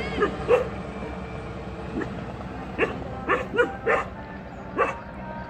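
A dog barking: about eight short barks, unevenly spaced, with several in quick succession around the middle.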